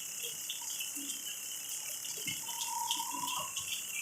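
Steady rain falling, an even hiss, with a short steady whistle-like tone about two and a half seconds in.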